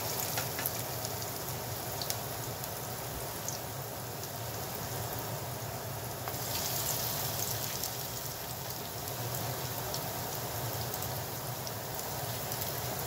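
Hot oil sizzling and crackling around akra, grated-malanga fritters, frying in a pan, with scattered small pops. About six seconds in, the sizzle swells for a moment as another fritter is slid into the oil.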